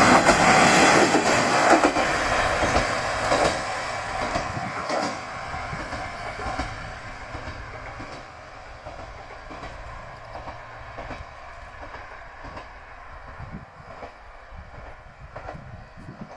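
Diesel railcar passing over a level crossing and moving away. Its running noise is loud at first and fades over about eight seconds, leaving the wheels clacking faintly over the rail joints.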